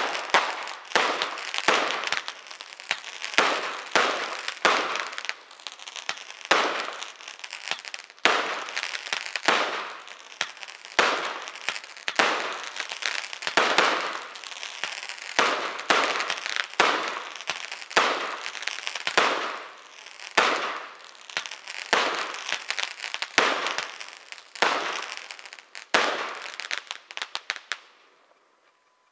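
Aerial fireworks going off in quick succession, a little over one sharp bang a second, each trailing off as it fades. The barrage stops shortly before the end.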